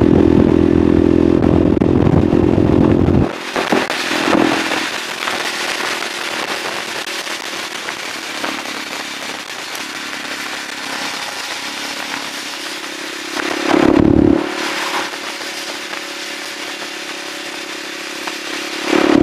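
Husqvarna SMR630 supermoto's single-cylinder four-stroke engine pulling hard at about 100 km/h, heard from on the bike. The throttle closes suddenly about three seconds in, and the engine runs on quieter under wind noise as the bike slows, with short bursts of throttle just after the cut, about two-thirds through and again at the very end.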